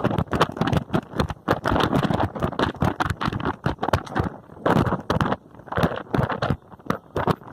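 A moving bus rattling and knocking, with irregular sharp knocks several times a second over a steady road rumble.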